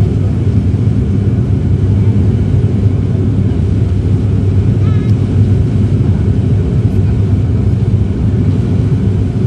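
Turboprop airliner's engines and propellers heard from inside the passenger cabin: a loud, steady, deep drone that does not change.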